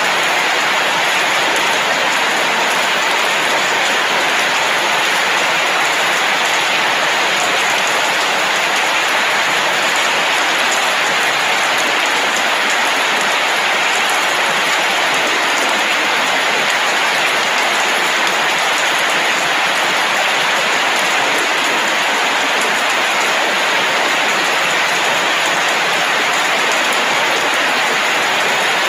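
Rain falling steadily, an even unbroken hiss that holds the same level throughout.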